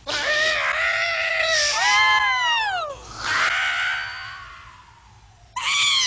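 High-pitched cartoon screams. A held cry turns into a scream that slides steeply down in pitch about two seconds in. Another cry follows and fades away, and a new scream starts near the end.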